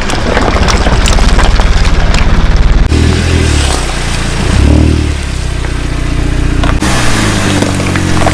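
Car engine running and revving, its pitch rising and falling a few times, with sharp crackles and clicks over it.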